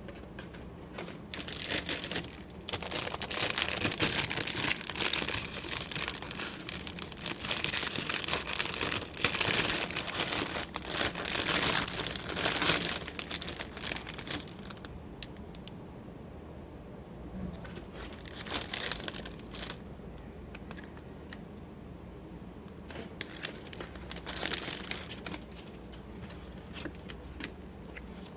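Model kit packaging being handled: wrapping crinkling and rustling. It is loud from about a second in until about halfway through, then comes back in two shorter bursts.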